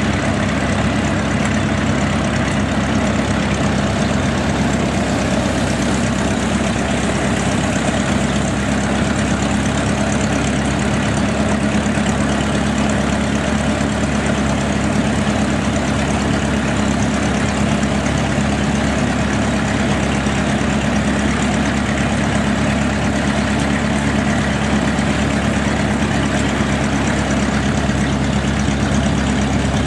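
Homemade doodlebug tractor's engine idling steadily, with no revving.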